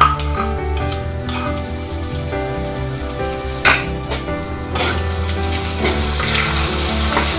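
Food sizzling in a wok on a gas burner as it is stirred, with a few metal clinks of the spoon against the pan, the sharpest about halfway through. Background music with a steady beat plays underneath.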